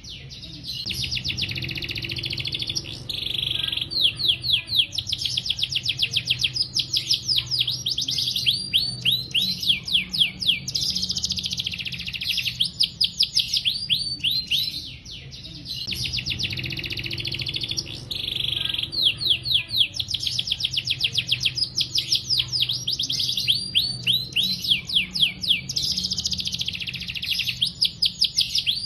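Domestic canary singing a long, unbroken 'gacor' song of the kind used as a tutor (masteran) recording for young canaries: rapid high trills and fast runs of repeated sweeping notes. The same stretch of song repeats after about fourteen seconds.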